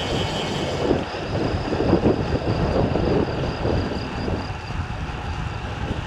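Wind buffeting the microphone during a road-bike ride, a gusty rush of noise that swells and dips.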